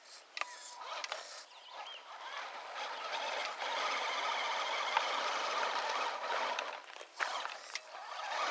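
Small electric RC crawler straining under tow load, its tyres and the towed truck's wheels grinding and rasping over gravel, with a few sharp clicks of stones. The towed Traxxas Summit has locked diffs and is in low gear, so it drags hard behind the Axial SCX10 Deadbolt.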